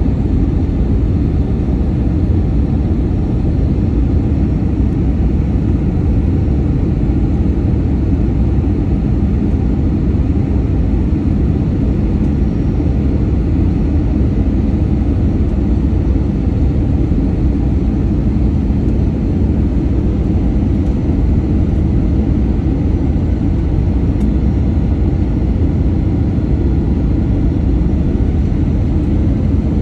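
Steady low rumble of a jet airliner's engines and rushing air, heard from inside the passenger cabin.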